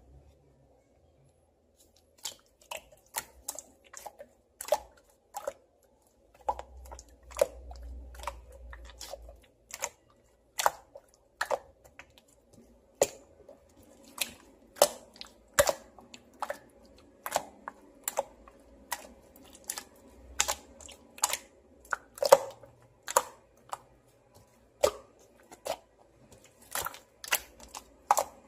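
Clear glitter slime being pressed and played with by hand, giving sharp clicking pops at an irregular pace of about one to two a second.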